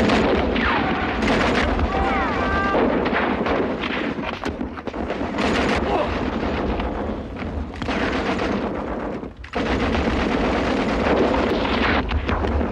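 Dense gunfire from rifles and a machine gun, shots coming almost without a break, with a brief lull about nine seconds in.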